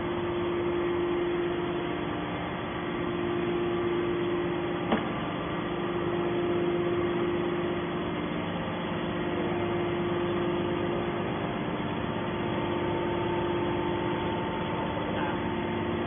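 Hydraulic scrap metal baler's power unit running steadily, its electric motor and pump making a constant hum with a few steady tones. A single sharp click about five seconds in.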